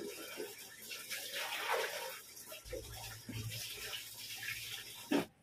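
Homemade liquid dishwashing soap being stirred in a plastic basin with a plastic stick: irregular swishing and sloshing of the thick liquid, with a few soft low thuds.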